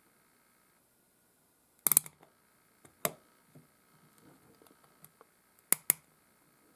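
Sharp little clicks and taps of a Hilco spring hinge tool working an eyeglass frame's spring hinge: a quick cluster about two seconds in, another click a second later and a close pair near the end, with faint fiddling between.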